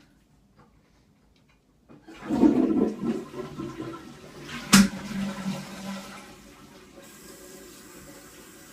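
Toilet flushing: a loud rush of water starts about two seconds in, with a sharp click midway. It fades into the steady hiss of the tank refilling.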